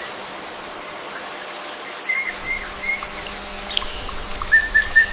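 A bird chirping in short, evenly repeated notes: a brief run of three about two seconds in, then a quicker run of about six near the end, over a steady outdoor background hiss.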